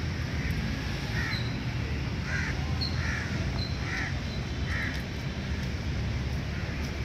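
A run of about five short, harsh calls, a second or less apart, over a steady low background rumble, with a few faint high chirps.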